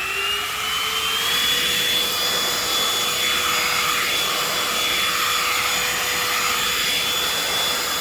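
Holife cordless handheld vacuum cleaner's 110 W motor spinning up with a rising whine that levels off about a second in, then running steadily with a strong rush of suction air.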